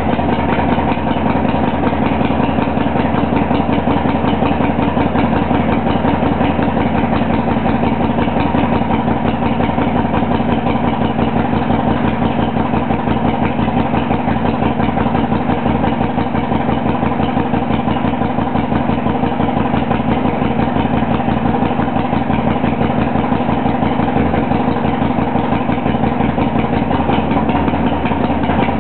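1999 Harley-Davidson Sportster's air-cooled Evolution V-twin idling steadily with a fast, even beat, cold after a couple of months of sitting unused.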